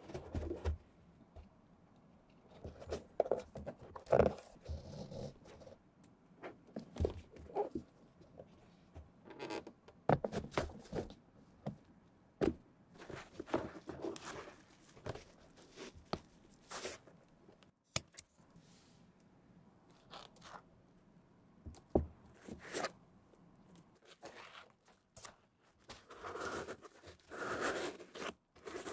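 Hand-stitching thread being drawn through the stitch holes of an Air Jordan 1's rubber cupsole: a series of short, irregular rasping pulls and light clicks. Near the end, hands rub and scrape inside the shoe's leather upper.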